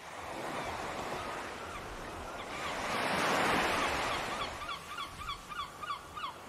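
A rushing noise like wind or surf, swelling to its loudest about three seconds in, with a quick run of short repeated bird-like calls, about five a second, through the second half.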